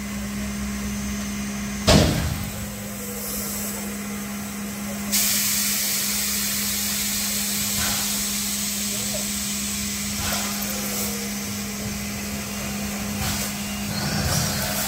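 Steam tank locomotive 378.78 standing with a steady hum, a single sharp knock about two seconds in, and from about five seconds in a steady hiss of escaping steam.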